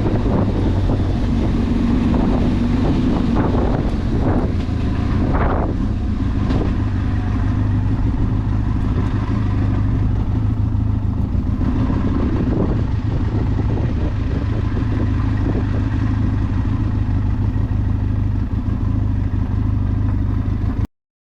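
Benelli TRK 502X's 500cc twin-cylinder engine running steadily under way, with a few rises and falls in revs in the first several seconds. It cuts off abruptly near the end.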